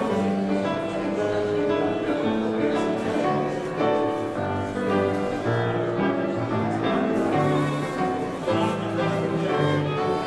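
Background instrumental music: sustained melodic notes that change steadily, with no break.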